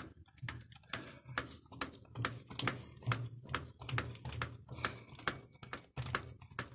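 Hand-pumped grease gun forcing grease through its hose into a combine bearing's grease nipple: a run of irregular mechanical clicks and clacks, about three a second.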